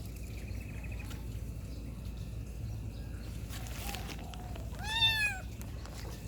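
A kitten meowing once, a short arched call about five seconds in, over a steady low background hum.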